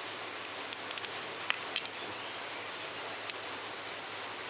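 A handful of light metallic clinks from the CVT roller weights and the drive-pulley roller housing being handled, two of them close together just under two seconds in, over a steady background hiss.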